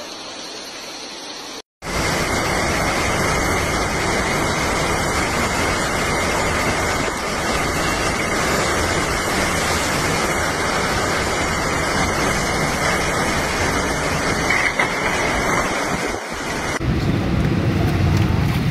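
Heavy monsoon downpour: a dense, steady hiss of pouring rain that cuts in suddenly about two seconds in. Near the end it gives way to a lower, rougher rumble.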